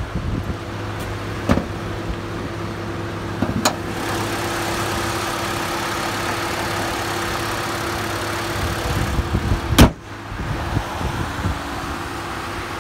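Mitsubishi Outlander's MIVEC engine idling with a steady hum, with a few light clicks early on and the hood slammed shut with one loud bang near the end.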